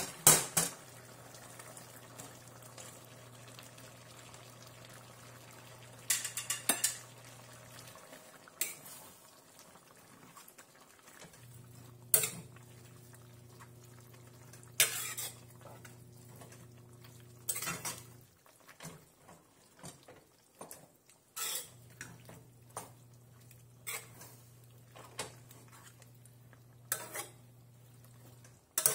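A metal spoon stirring onions into a pan of beef and vegetables, with sharp clinks of the spoon against the pan every few seconds.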